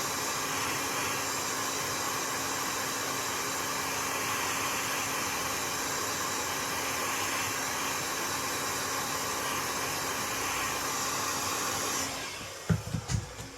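Hot air gun blowing steadily, its fan giving a faint steady hum under the rush of air, then switched off about a second and a half before the end. A few quick knocks follow right after.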